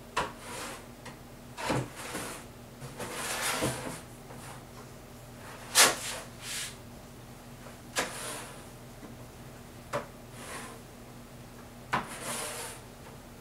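A wide putty knife scrapes acrylic gesso across gatorboard in separate strokes, roughly one every two seconds. Each stroke starts with a sharp click and runs into a short scrape, with one longer rubbing stroke about three seconds in and the sharpest click about six seconds in.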